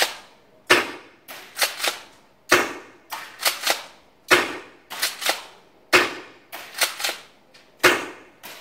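Secutor Velites gas airsoft shotgun, the long version with folding stock and gas in the stock, firing five sharp shots roughly every two seconds. Each shot is followed by two or three quieter clicks.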